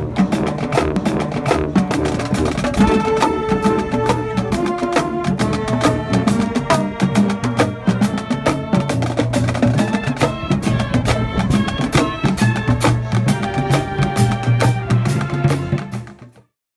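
Music with busy, crisp percussion and a steady beat, fading out to silence near the end.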